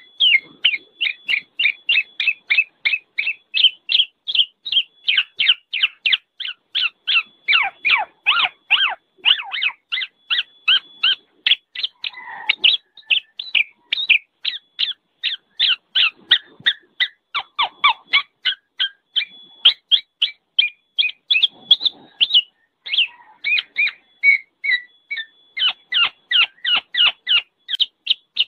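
Black-naped oriole (kepodang) giving a noisy run of short, repeated call notes, about three a second, kept up without a break.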